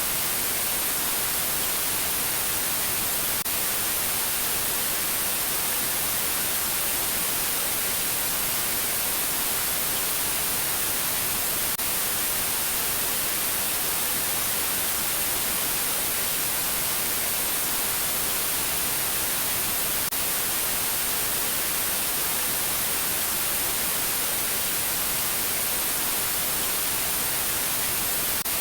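Steady static hiss of white noise at an even level, with nothing else over it.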